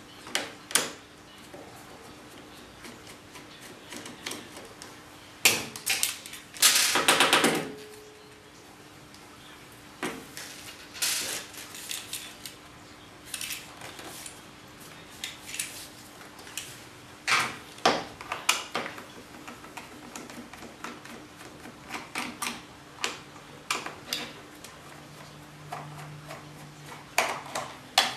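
Clicks, taps and knocks of a screwdriver and plastic parts being handled on a steel workbench while working on an electric wire-rope hoist's wiring box and pendant control, with one louder rattling clatter about seven seconds in. A faint steady hum runs underneath.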